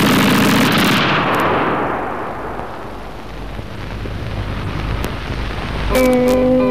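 A sudden loud explosion-like blast, its rumble dying away over two or three seconds, then a low rumble that swells again. Guitar music comes in near the end.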